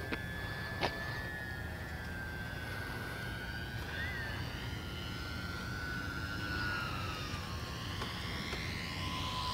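Twin engines of a radio-controlled Cessna model whining in flight, two close tones that slowly fall in pitch as the plane comes in to land.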